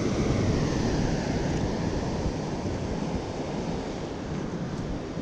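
Wind buffeting the microphone over the steady wash of ocean surf breaking on rocks.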